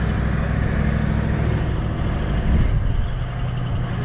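Four-wheel-drive vehicle's engine running steadily as it drives along a soft sand track, with tyre and road noise, easing slightly near the end.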